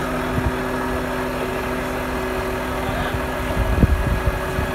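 Diesel engine of a lorry-mounted crane running steadily at a constant speed, with a few low thumps about three and a half seconds in.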